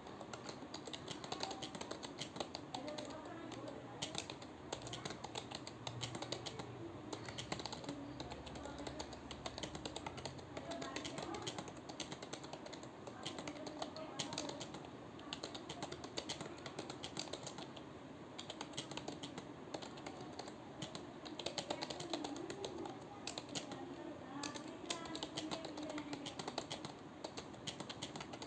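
Computer keyboard being typed on steadily and fast: a continuous run of key clicks, several a second, without pause.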